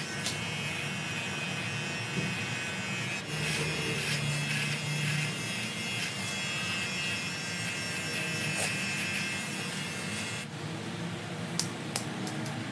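Electric hair clippers buzzing steadily while a head is shaved, cutting off about ten seconds in, followed by a few sharp clicks.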